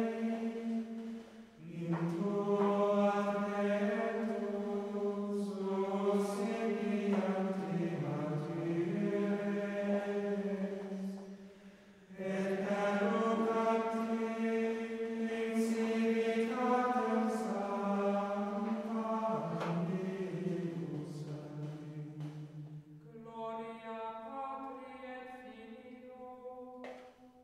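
Slow, chant-like vocal music sung on long held notes, in long phrases with brief breaks about a second and a half in and again about twelve seconds in.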